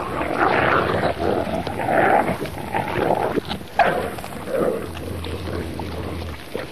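A pack of Iberian wolves snarling and growling as they squabble over a carcass. The sound comes in rough bursts, loudest in the first three seconds or so, with a sudden sharp sound nearly four seconds in, then eases off.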